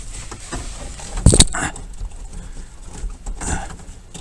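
Clicks and knocks of steering-column parts and wiring being handled and fed through the column, with a loud sharp double knock about a second in and a smaller knock near the end.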